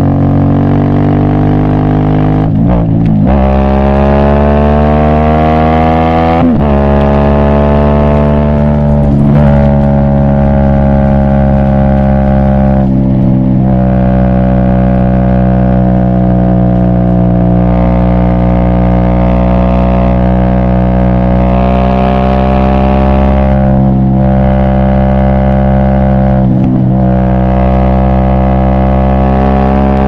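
Aprilia Shiver V-twin motorcycle engine accelerating through the gears: the note climbs and drops back at each of several upshifts over the first dozen seconds, then holds a steady pitch while cruising, with two brief throttle dips near the end.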